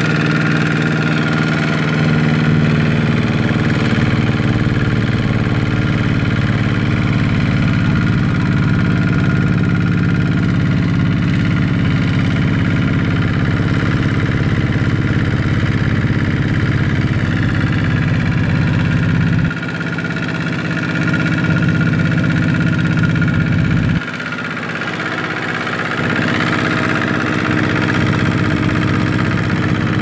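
Single-cylinder diesel engine of a two-wheel walking tractor running steadily as it pulls a loaded trailer through mud. Twice in the second half the sound drops briefly and then builds back up.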